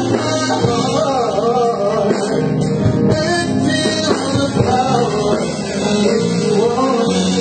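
A man singing into a handheld microphone, amplified, over live keyboard and band accompaniment.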